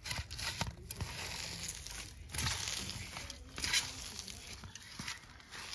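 Hands squeezing and mixing chopped green stalks with spices in a bowl: irregular crinkling, crunching rustles, with a few louder squeezes partway through.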